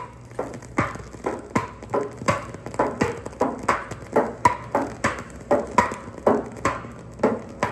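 Recorded ping-pong rally from a stereo demonstration LP, played back through loudspeakers: the ball clicking off paddles and table in a steady back-and-forth about three times a second, each hit a short hollow pock.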